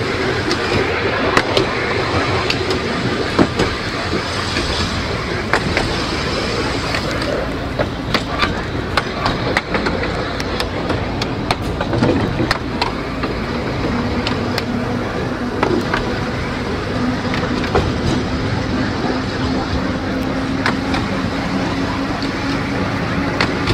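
A 2 ft 9 in narrow-gauge electric tramcar running along the track: a steady running rumble with frequent sharp clicks from the wheels over rail joints and points. About halfway through, a steady whine sets in and slowly rises in pitch as the tram gathers speed.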